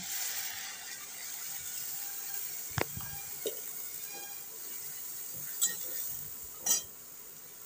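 Wet ground masala paste sizzling as it goes into hot mustard oil in a steel kadhai, the hiss fading near the end. A metal spatula knocks and scrapes against the pan and steel bowl about four times.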